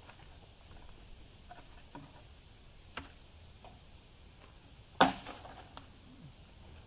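A few scattered clicks and knocks, with one loud sharp knock about five seconds in.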